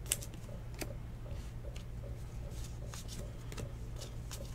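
Football trading cards being slid one at a time off a stack held in the hands, making a few faint, irregular papery clicks over a steady low hum.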